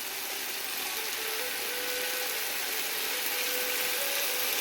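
Onions and chillies sizzling in hot oil in a frying pan, the sizzle growing a little louder as sauce goes in.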